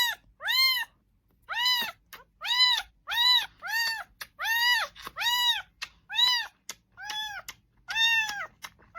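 A cat meowing over and over: about a dozen short meows in quick succession, each rising and then falling in pitch.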